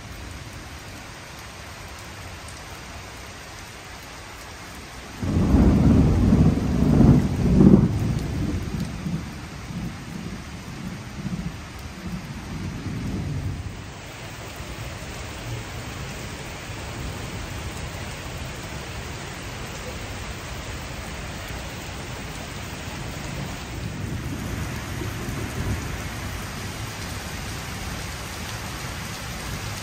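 Steady rain falling on wet paving during a thunderstorm. About five seconds in, a loud thunder clap breaks out and rolls on in rumbles for several seconds before dying away, and a fainter rumble of thunder comes near the end.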